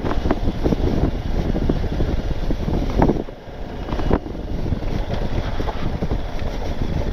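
BMW R1250 motorcycle's boxer-twin engine running as it rides over a dirt track, under heavy wind buffeting on the helmet microphone, with short knocks from the rough ground. The sound eases briefly a little after three seconds in, then picks up again.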